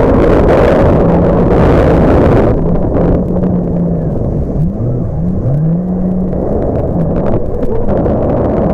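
Jet ski engine running at speed, with wind noise over it for the first two and a half seconds. Around the middle the engine pitch drops and climbs back up a couple of times, as the throttle is eased and opened again.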